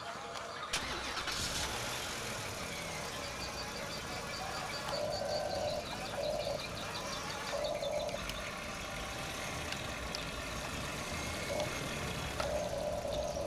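A steady engine-like mechanical noise that starts suddenly about a second in and runs on, with short repeated tones several times in the second half.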